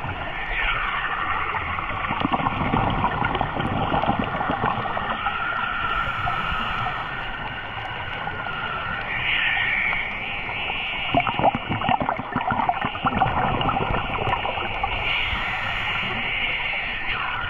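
Muffled underwater sound of a scuba dive: a diver's regulator exhaust bubbles rumbling and gurgling in two long bursts, over a steady hiss with a faint wavering whine.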